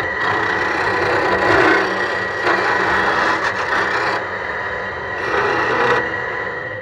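1959 Rockwell Delta wood lathe running while a hand-held turning tool cuts a spinning wenge dowel: a steady hissing, rasping cut over a faint high whine, swelling and easing slightly as the tool moves along the work.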